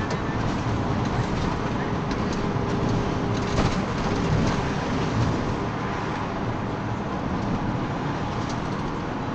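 Mercedes-Benz Sprinter minibus driving along, heard from inside the passenger cabin: steady engine and road noise with light rattles here and there.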